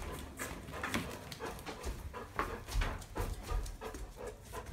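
A dog walking along with a phone held in its mouth: irregular soft footfalls and light taps of its paws.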